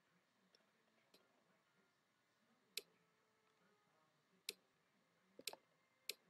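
Near silence broken by a few sharp computer mouse clicks, the first about three seconds in, one of them a quick double click.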